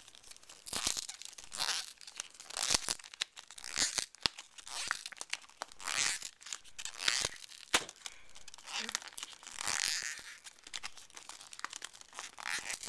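Paper packaging being handled: repeated crinkling and tearing rustles with scattered small clicks.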